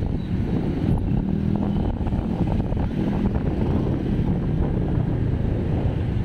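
Steady low wind rumble buffeting the microphone of a camera moving along a road, with traffic engine noise mixed in.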